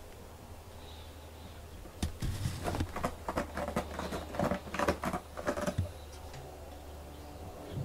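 A cat's claws and paws scraping and scuffling on a corrugated cardboard scratcher: a quick, irregular run of rasping scratches lasting about four seconds in the middle.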